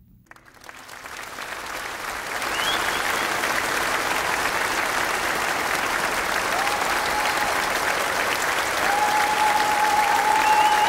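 A large audience applauding, fading in over the first two seconds and then holding steady.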